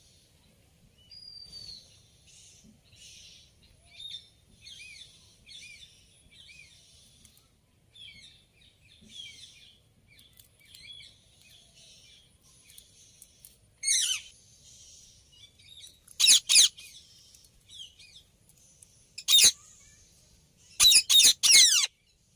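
Green parrot chattering softly with small chirps, then giving loud, shrill screeches: one about two-thirds of the way in, a pair soon after, another, and a quick run of three or four near the end.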